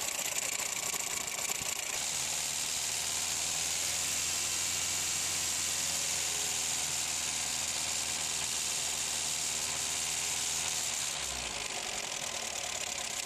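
Ford 1.3-litre four-cylinder petrol engine idling steadily under the open bonnet. A deeper hum sets in about two seconds in.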